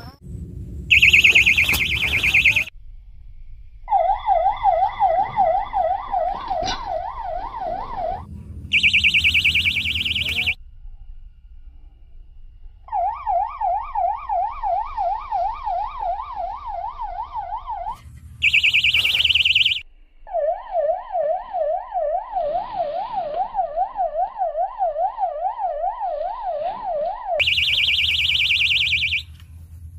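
Electronic fishing bite alarms going off with a siren sound, signalling a fish taking the bait. Short, loud, fast high warbles alternate with longer, lower wails that sweep up and down about three times a second.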